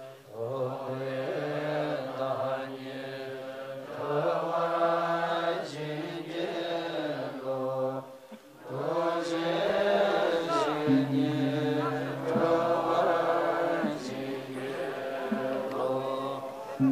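Buddhist monks chanting prayers in unison, low sustained voices on a steady pitch, pausing briefly about eight seconds in.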